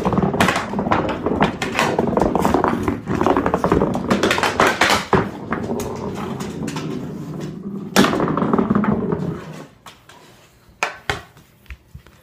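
A large dog playing on a hardwood floor, its sounds mixed with the rapid clatter of a hockey stick and ball. It dies down about nine and a half seconds in, leaving a few scattered knocks.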